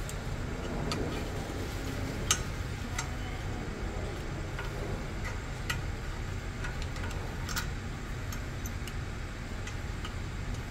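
Light metallic clicks and scrapes, irregular and a second or so apart, of a screwdriver working a spring retaining clip onto a rear brake caliper, over a steady low hum.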